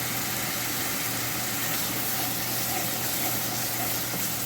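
Dried chili paste and onions frying in hot oil in a pan, a steady sizzle that starts suddenly just as the paste goes in.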